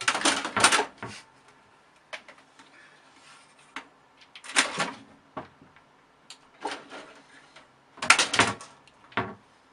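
Scattered knocks and rustling clatter, coming in three short clusters a few seconds apart with single ticks between them.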